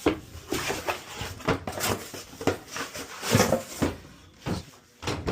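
Irregular handling noise: a run of short knocks, rubs and clatters of hard objects being moved, with a sharper knock near the end.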